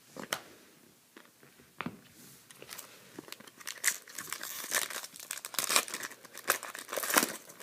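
A trading-card pack wrapper crinkling and tearing as it is opened. It starts with a few light clicks, then turns into a busy, sharp crackle from about two seconds in.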